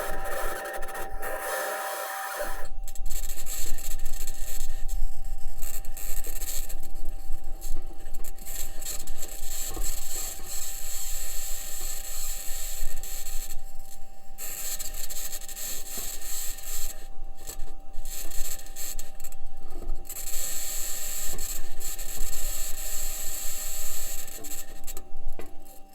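Perseverance Mars rover driving, picked up by its entry, descent and landing microphone: wheels and suspension grinding and rasping over the Martian surface, with a high-pitched scratching noise on top. NASA's engineers were unsure of that scratching's source: electromagnetic interference from one of the rover's electronics boxes, or the mobility system working against the surface. A thin steady tone runs underneath, and the texture turns harsher and hissier about three seconds in.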